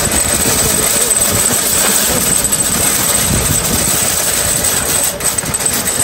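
Metal shopping cart rolling across a snowy, slushy parking lot, its wheels and frame rattling in a loud, steady rumble.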